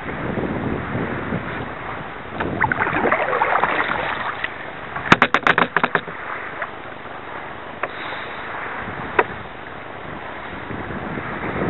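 Water splashing and lapping around a kayak with wind on the microphone, swelling in surges like paddle strokes. About five seconds in comes a quick run of sharp knocks, with single ticks later.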